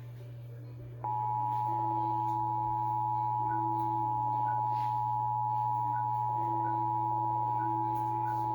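Emergency Alert System two-tone attention signal: a steady two-note tone that starts about a second in and holds, over a low hum. It announces an incoming emergency alert, here a tornado watch.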